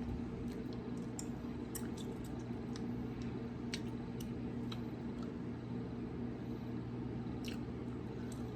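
A steady low electrical hum under room noise, with scattered faint clicks and small smacking sounds.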